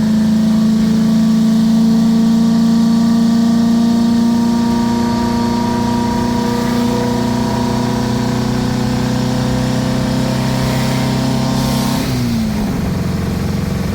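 Air-cooled 1600 flat-four of a 1977 VW Brasília heard from inside the cabin, held at high, steady revs as a gear is stretched out through its short gearing. About twelve seconds in the revs fall sharply.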